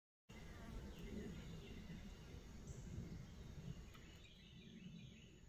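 Faint forest ambience: a low rumble with faint insects buzzing, starting abruptly just after the beginning.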